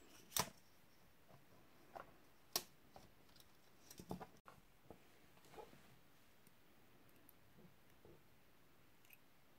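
Sparse, faint clicks and taps of silver-plated copper wire and small hand tools being handled, with a sharper click near the start and another about two and a half seconds in.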